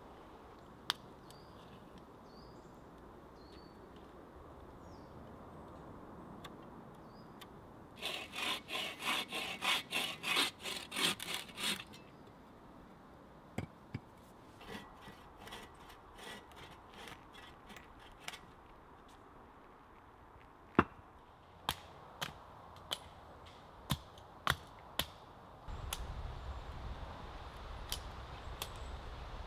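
Wood being cut with a hand bow saw: a fast, loud run of strokes about eight seconds in and a softer run a few seconds later. A series of sharp wooden knocks follows, then sawing starts again near the end. A few faint bird chirps come in the first seconds.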